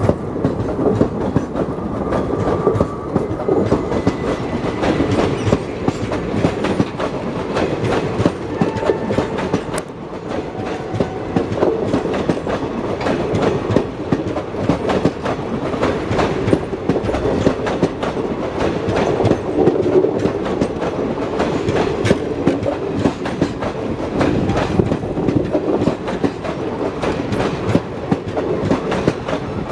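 Passenger coaches of a departing express train rolling past close by, their wheels clattering steadily over the rail joints.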